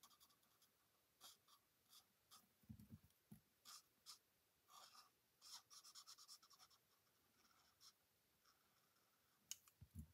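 Faint, repeated scratching of a felt-tip alcohol marker stroking over die-cut cardstock while colouring in.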